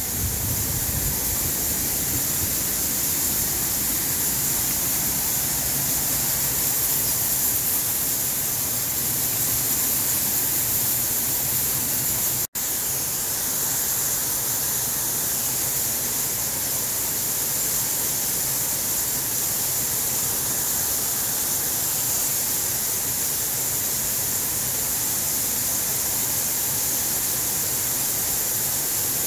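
Steady high-pitched hiss that cuts out for an instant about twelve seconds in.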